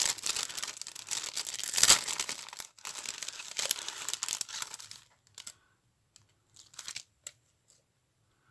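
Plastic packet of glitter chipboard swirls crinkling and rustling as it is handled and a swirl is pulled out, loudest about two seconds in. The rustling stops about five seconds in, and a few light clicks follow as the packet and swirl are set down.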